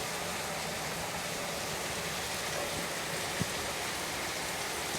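Steady rain falling, an even hiss, with one faint tap about three and a half seconds in.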